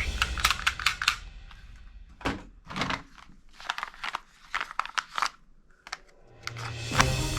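Irregular clicks and knocks of plastic toy guns being handled. Music comes back in near the end.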